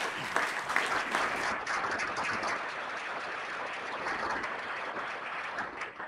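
Audience applauding, fading out near the end.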